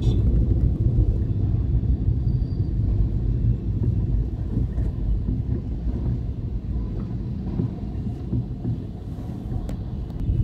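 Steady low rumble of a moving road vehicle amid city traffic, easing slightly near the end.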